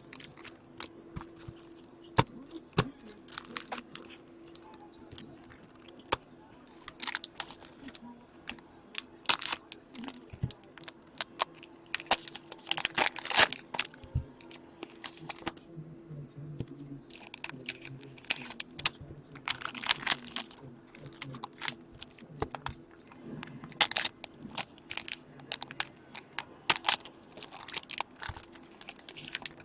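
Hockey card packs and a blaster box being opened by hand: wrappers tearing and crinkling, in irregular crackling bursts that are thickest about halfway through and again about two-thirds of the way in.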